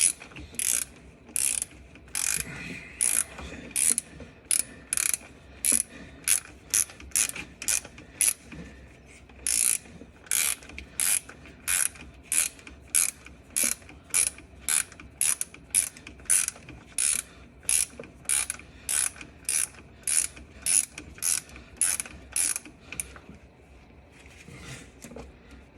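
Hand ratchet wrench driving in a starter mounting bolt: short bursts of pawl clicking about twice a second, one burst per stroke, stopping a couple of seconds before the end.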